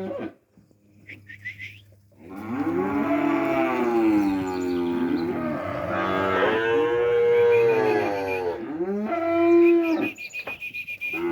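Calves mooing together in long, overlapping calls that rise and fall in pitch, after a brief lull about a second in.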